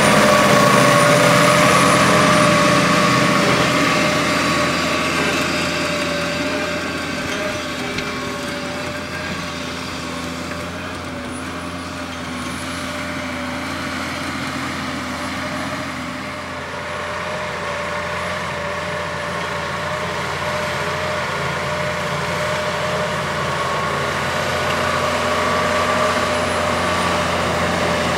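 Case IH Puma 215 tractor's six-cylinder diesel engine running steadily under load while pulling a land leveller through the soil. It grows fainter through the middle and louder again near the end.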